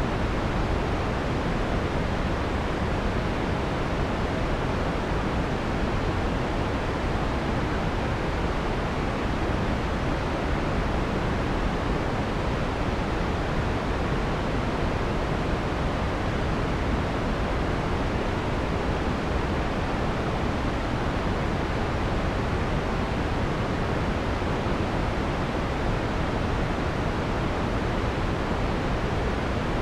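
Steady synthesized white noise from a noise generator, filtered to remove the harsh high frequencies, giving an even, dark hiss close to pink noise with no change in level.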